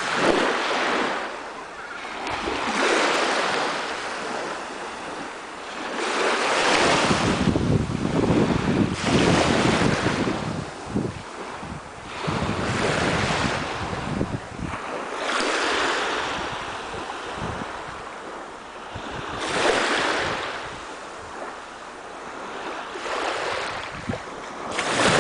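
Small sea waves washing in on a shore one after another, a swell of surf noise every three to four seconds. Wind rumbles on the microphone, strongest in the middle.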